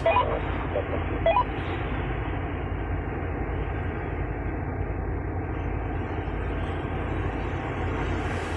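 Kobelco excavator's diesel engine running steadily, heard from inside the cab: a constant low rumble.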